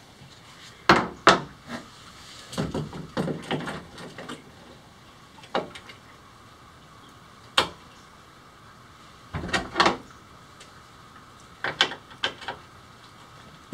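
Irregular knocks and clunks of metal hardware being worked on by hand at the paddle-wheel bearing mount of a pedal boat. About a dozen sharp strikes come in small clusters, the loudest about a second in and again about three quarters of the way through.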